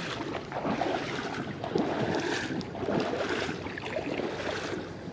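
River water running steadily, with small irregular splashes and scuffs as a hooked trout thrashes at the surface.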